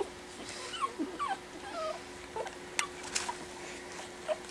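Four-week-old Pekingese puppy whimpering in a series of short, high, wavering squeaks: the fussing of a tired puppy. Two sharp clicks sound in the middle.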